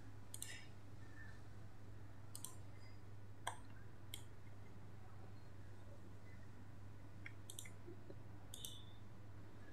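Faint computer mouse clicks, a handful spaced irregularly over several seconds, as sample points are placed on a map, over a low steady hum.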